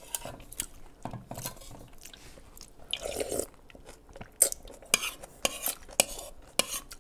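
Noodle soup being eaten from a large bowl: a spoon clinks against the bowl again and again, with soft eating sounds in between. In the second half the clinks come about every half second.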